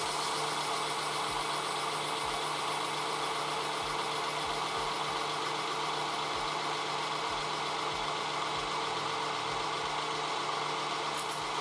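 Metal lathe running steadily while turning a large steel workpiece: an even machine tone with the hiss of the cut, unchanging throughout.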